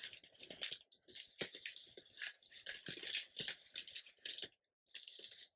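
Paper and card rustling and scraping as decorated journal cards are handled and tucked into a parchment-paper pocket, in short irregular bursts with a brief pause about four and a half seconds in.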